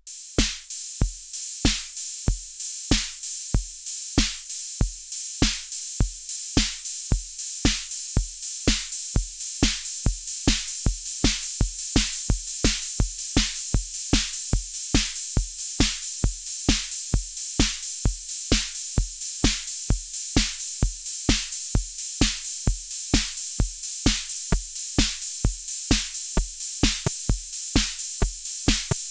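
Erica Synths Bassline synthesizer playing a sequenced pattern of short, punchy bass notes. Each note drops quickly in pitch, kick-drum-like, over a steady high hiss. The pattern starts at about two notes a second and gets busier as it goes.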